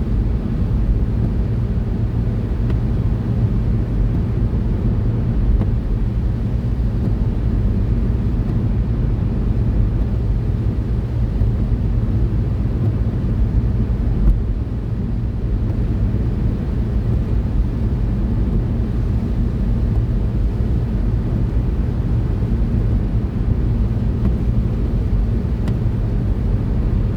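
Steady road and engine rumble of a car driving at a constant speed, heard from inside the cabin, with a single short click about fourteen seconds in.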